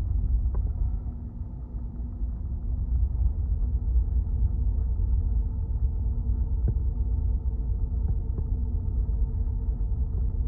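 Steady low rumble with a constant machinery hum of several steady tones, as of an engine running, and a couple of faint clicks.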